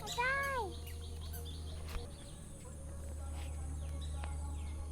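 Small birds chirping over and over, quick high downward chirps, over a steady low hum. Right at the start a single short pitched call rises and falls.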